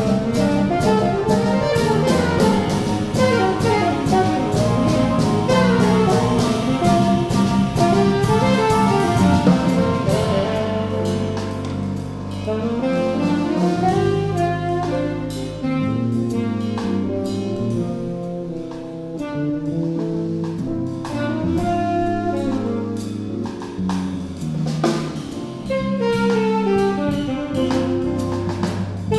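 Live jazz quartet: saxophone playing a melodic solo line over grand piano, upright bass and drum kit. The cymbals are busy at first and ease off about ten seconds in.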